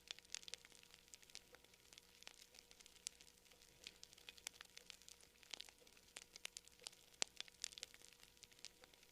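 Faint, irregular crackling clicks, several a second, over a faint steady hum.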